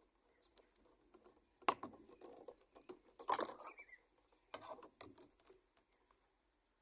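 Plastic loose tubes of a stripped ADSS fibre-optic cable rubbing and clicking against each other as they are untangled by hand: a few short, faint scratchy rustles.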